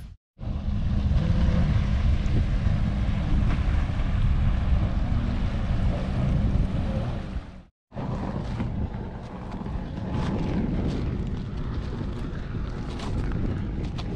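Wind buffeting the microphone as a heavy, steady rumble. The sound drops out briefly near the start and again just before eight seconds, and after the second break the wind is lighter, with scattered sharp clicks and crunches of loose brick rubble being walked over.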